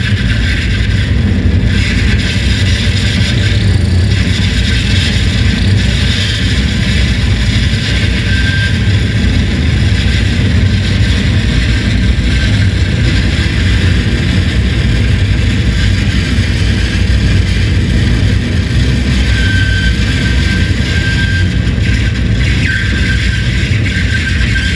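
Harsh noise performance: a loud, unbroken wall of distorted electronic noise from effects pedals through an amplifier, heavy in the lows. A few brief high feedback whines cut through, and a rising squeal comes near the end.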